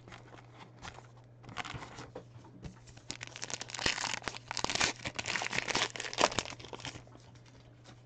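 A trading-card pack wrapper crinkling and tearing as the pack is opened, a dense run of crackles that is busiest in the second half.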